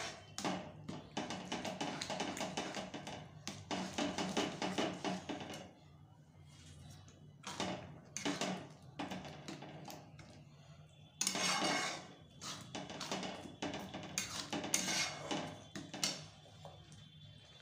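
Metal spatula scraping and clattering against a metal kadhai while thick spinach saag is stirred. The strokes come in a dense run for the first few seconds, then in shorter bursts with quiet gaps.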